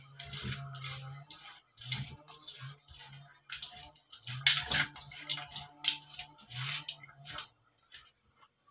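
Fingers scraping and rubbing a wet tamarind-and-salt seasoning mix around a metal wok, in irregular bursts that stop about seven and a half seconds in.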